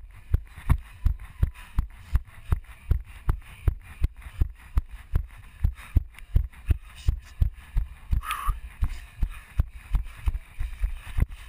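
A runner's footfalls, heard as a steady train of low thumps about three a second through a camera strapped to the head. A brief higher-pitched sound cuts in about eight seconds in.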